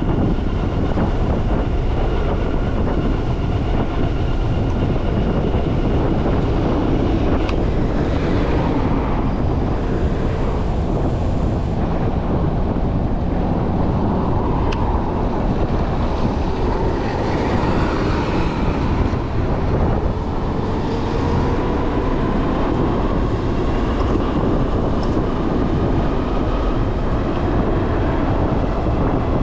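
Juiced HyperScrambler 2 electric bike being ridden: a steady rush of wind on the microphone and tyre noise, with a faint whine that rises and falls around the middle.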